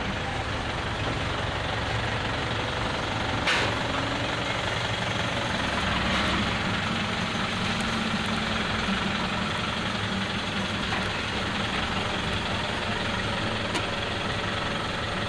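Steady low mechanical rumble of running machinery, with one sharp click about three and a half seconds in.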